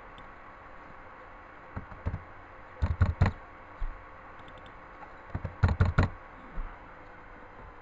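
Quick clusters of sharp clicks and knocks, two loud groups about three seconds apart with a few single knocks around them, over a faint steady hum.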